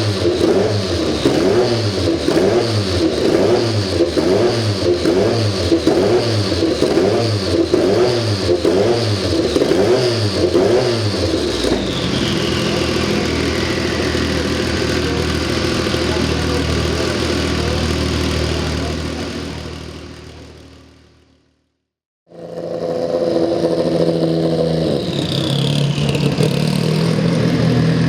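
Porsche 962 Group C race car's twin-turbo flat-six being revved in quick, even rises and falls, then settling to a steady idle while a high whine falls away. The sound fades out and cuts off, then comes back on the engine idling, with another falling whine.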